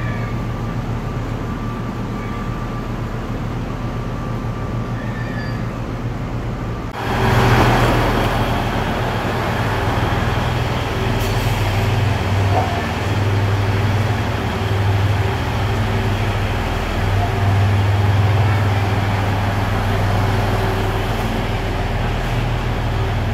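Steady running rumble inside a UP Express diesel multiple-unit train car. About seven seconds in, it changes abruptly to the louder, fuller noise of the station platform, with a steady low hum underneath.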